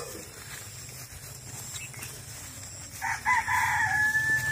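A rooster crows once, starting about three seconds in and ending on a long drawn-out note.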